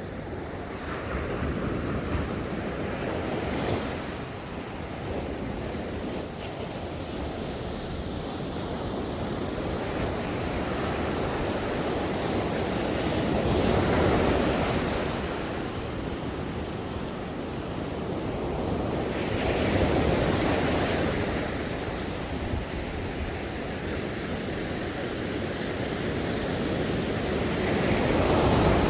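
Ocean waves breaking and washing up on a shore, each surge swelling and falling back, with wave peaks about every six seconds.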